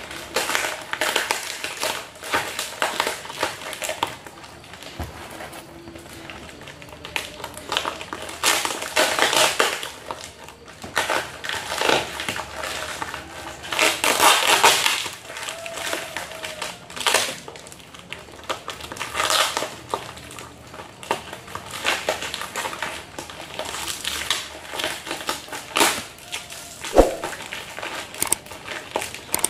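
Plastic wrapping and packing tape crinkling, rustling and tearing in irregular bursts as a parcel is picked and cut open by hand.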